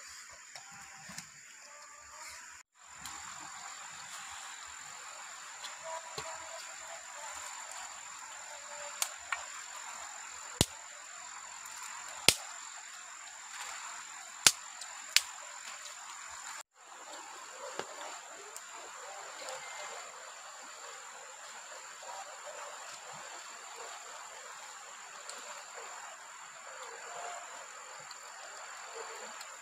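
Steady high-pitched insect drone over outdoor ambience, with six sharp clicks or knocks around the middle.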